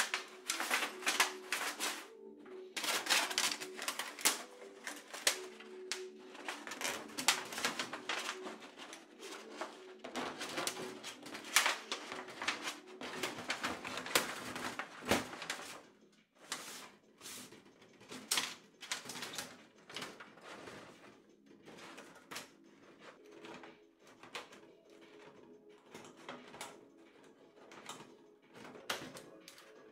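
Metal clinking, scraping and rattling as sections of a titanium stove's flue pipe are pushed onto the stove collar and a hose clamp is handled and tightened, busiest in the first half. A bird coos repeatedly in the background.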